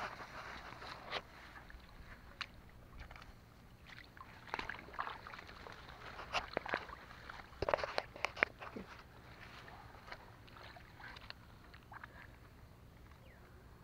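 Hands digging and scooping wet mud out of a water-filled hole while hunting eels: irregular wet sloshes, slaps and scrapes, busiest about halfway through.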